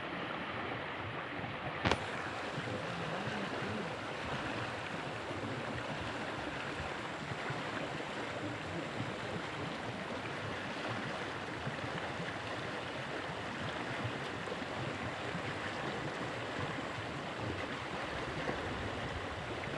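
Steady rush of flowing river water, with a single sharp click about two seconds in.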